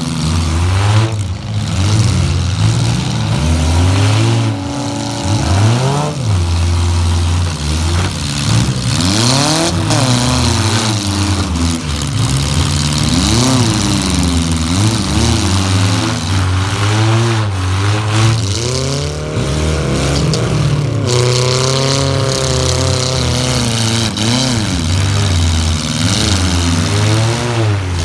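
Several demolition-derby cars' engines revving hard at once, loud and without a break, their revs rising and falling over and over as they push against each other.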